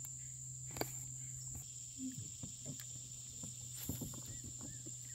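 Steady high-pitched drone of insects in the riverside woods, with a few scattered light clicks and knocks. A low hum underneath stops about a second and a half in.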